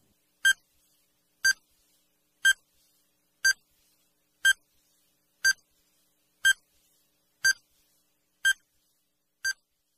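Countdown-timer sound effect: a short, high electronic beep once a second, ten beeps in all, the last one softer.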